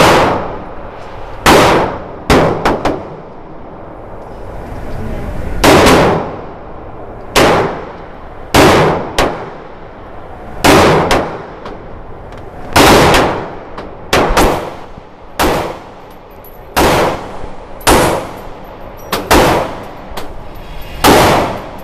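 Semi-automatic pistol shots fired at irregular intervals, about twenty in all, some in quick pairs, each with a long echo off the walls of an indoor range.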